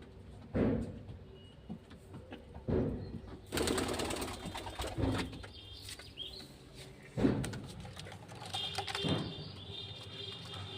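Domestic pigeons cooing: a low call repeating about every two seconds, five times. A noisy rustle comes about three and a half seconds in.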